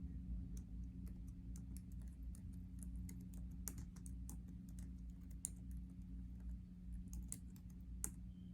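Rapid, irregular light clicks, like typing, over a steady low hum.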